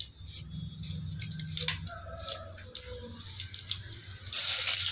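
A red onion being sliced on a floor-mounted cutting blade, a run of short crisp cuts. About four seconds in, the onion slices go into hot oil with tempering seeds and start to sizzle loudly.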